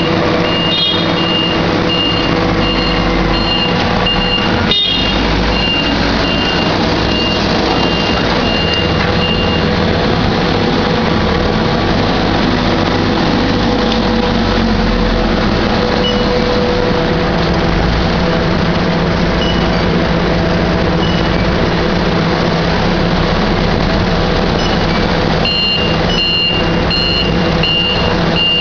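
Propane-powered Mitsubishi forklift running, its engine humming steadily. Its reverse alarm beeps in a quick series for the first ten seconds or so, stops, and starts again near the end.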